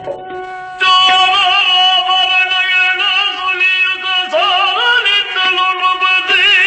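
Yakshagana singing: a voice enters about a second in and holds long, wavering notes that glide between pitches over a steady drone.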